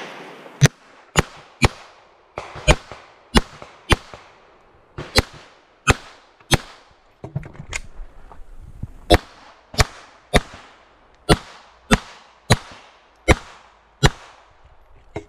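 A Glock pistol firing a course of fire: about twenty sharp shots, spaced roughly half a second to a second apart in short strings, with a few longer gaps between them.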